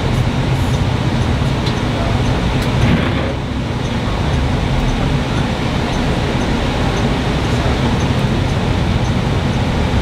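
Steady engine rumble and tyre noise heard from inside a bus cabin as it drives along a snow-covered road.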